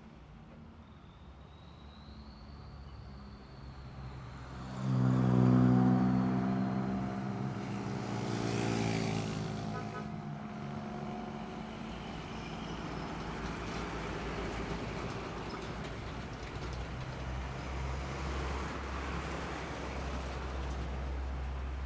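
Road traffic: a vehicle engine passes close about five seconds in, its note loudest there and then sliding slowly down in pitch as it moves away, followed by a steady mix of passing cars, trucks and motorcycles.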